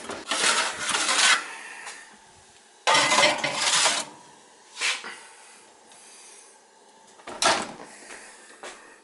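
A kitchen oven door being opened and a metal sheet pan carrying a ceramic baking dish being slid onto the wire oven rack, with clattering and metal scraping, followed by the door being shut. There are several separate clatters: one at the start, a longer scrape about three seconds in, a short knock near five seconds, and a last clatter about seven and a half seconds in.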